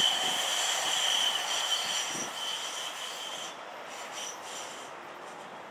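Sound Transit Link light rail train passing, its wheels squealing in a steady high whine that fades as the train moves away and dies out about three and a half seconds in.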